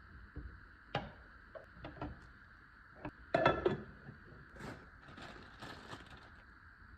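Objects being handled: a few light knocks, a louder run of clattering knocks about three and a half seconds in, then a couple of seconds of rustling.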